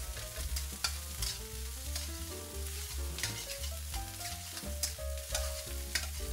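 Metal spatula scraping and knocking against a wok about twice a second as rice and egg are stir-fried over high heat, over a steady sizzle of frying.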